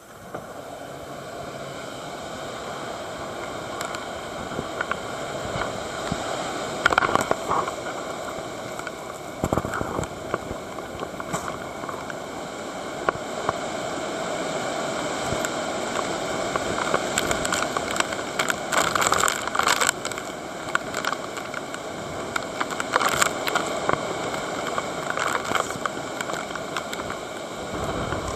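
Strong typhoon wind gusting and buffeting the microphone, with scattered crackling hits. The noise rises in the first seconds and swells and eases in gusts.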